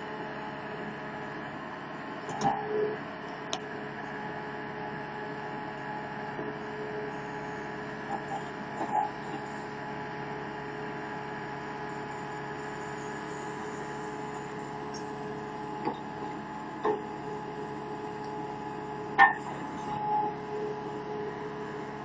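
HAMAC TS series skid steer loader running with its backhoe attachment digging, a steady droning hum with a whine on top. A few short knocks and clanks break in now and then, the loudest about nineteen seconds in.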